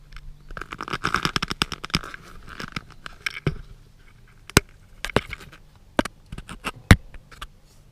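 A quick run of rattling clicks and scraping, then several single sharp clicks spaced about a second apart.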